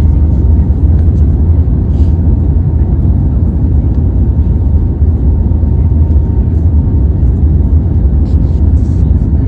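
Steady low rumble of an airliner's engines and airflow inside the passenger cabin.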